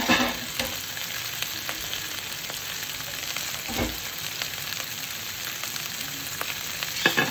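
Flour-dredged grouper steaks frying in hot oil: a steady sizzle with scattered crackles and pops. There are a couple of brief louder knocks, one near the start and one about four seconds in.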